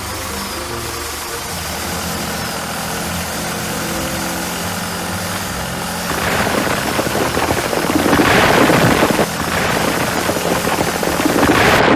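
Vehicle engine running steadily. About six seconds in it turns louder and rougher, with a heavy rattling rumble that swells twice.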